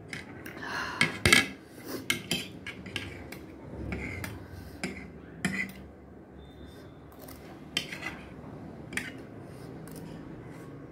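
Metal spoon and fork scraping and clinking against a plate as the last noodles are gathered up, in a series of short sharp scrapes and taps.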